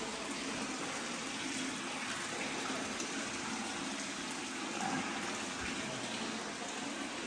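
Steady rush of running water from an indoor courtyard pool.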